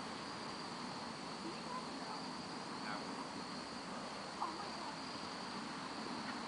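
Crickets chirring steadily at one high pitch, with a few faint knocks.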